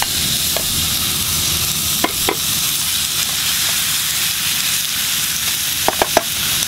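Sliced pork belly and pork shoulder sizzling steadily in a hot dry pan with no oil, frying in their own rendering fat. A wooden spatula stirring the meat knocks against the pan a few times, about two seconds in and again near the end.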